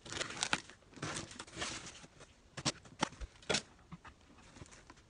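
Scissors slicing through the packing tape on a cardboard shipping box, then the cardboard flaps pulled open: a string of short scrapes and sharp clicks.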